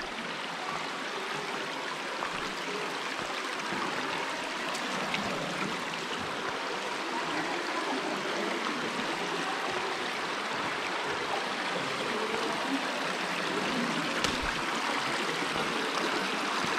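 Shallow creek water running over rocks, a steady rushing that slowly grows a little louder.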